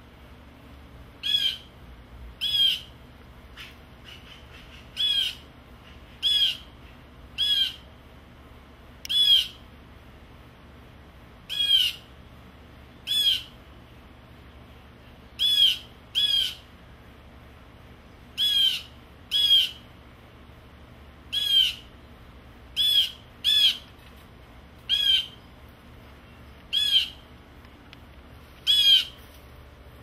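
Blue jay giving its jay call over and over, short calls every second or two, scolding the cat below as it mobs it.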